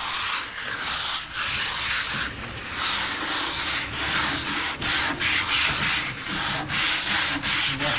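Sandpaper rubbed by hand back and forth over a wooden cabinet door in quick, repeated scratchy strokes that come faster in the second half. It is the sanding that readies the door for lacquer paint.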